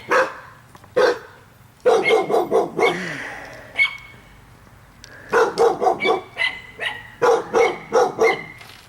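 A dog barking in quick runs of four or five barks, three runs in all, with a few single sharp cracks between them.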